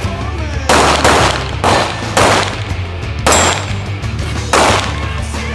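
About six pistol shots fired at an uneven pace, two of them close together about a second in. Each is a sharp crack with a brief ring after it.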